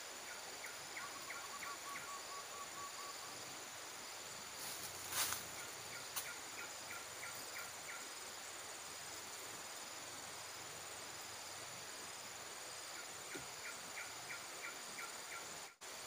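A recorded bird call played from a trapper's MP3 lure: a short run of chirps with a brief trill, repeated three times at even intervals. Insects buzz steadily throughout, and there is a brief rustle about five seconds in.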